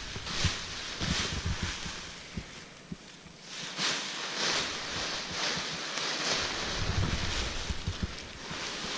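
Nylon paraglider wing and its lines gathered up by hand: repeated rustles and swishes of the fabric, with wind buffeting the microphone.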